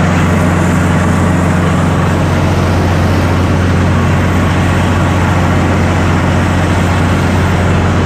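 Water well drilling rig running steadily under power: a loud, constant engine drone with a deep hum and no change in pitch.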